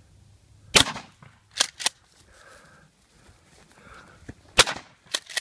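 Remington 870 12-gauge pump shotgun firing 00 buckshot twice, about four seconds apart. Each shot is followed within a second by a quick pair of clacks as the pump is worked to chamber the next shell.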